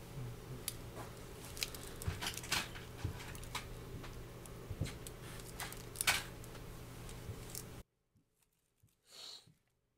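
Small clear plastic bag holding a new IC being handled and opened with tweezers: a run of sharp crinkles and clicks that stops about eight seconds in, followed by a short soft hiss.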